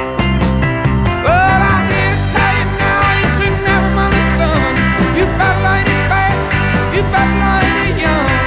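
Music: a song with band accompaniment plays, its melody line sliding between notes.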